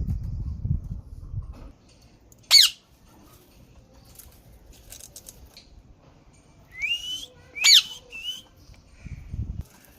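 Green parrot calling: sharp, quickly falling shrieks, one a couple of seconds in and another after a rising whistle near the middle, with a short note after it. A low rumble at the start and briefly near the end.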